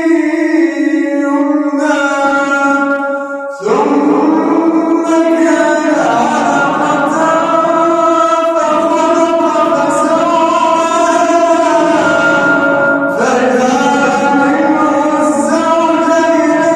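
A man chanting the Quran in the melodic tajweed style, drawing out long held, ornamented notes; a new phrase begins about four seconds in after a brief breath.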